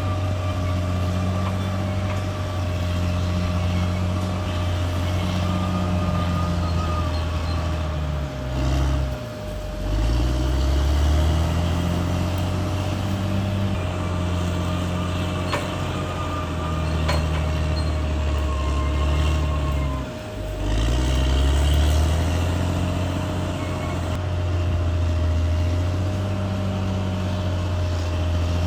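CAT D6R XL bulldozer's diesel engine running hard. Its engine speed sags twice, briefly, and climbs back each time.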